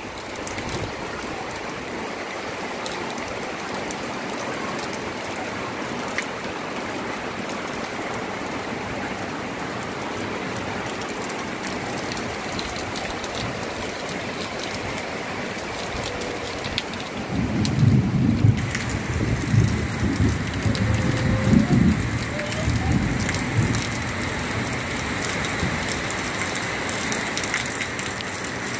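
Heavy rain pouring steadily on vegetation and ground. About two-thirds of the way through, a few seconds of louder low rumbling rise over the rain.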